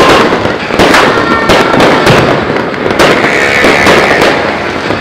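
Fireworks and firecrackers going off all at once: a dense, unbroken barrage of loud overlapping bangs and crackling.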